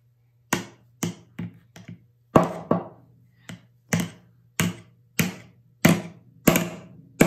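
Claw hammer driving a small nail into a wooden kit part, struck by a child: a run of about fourteen sharp knocks starting about half a second in, uneven at first, then settling to roughly three blows every two seconds.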